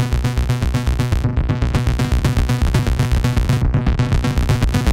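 Behringer Neutron analog oscillator droning, its own output fed back through an AI008 matrix mixer into its shape input, so the waveform modulates itself. The tone has a fast, even pulsing.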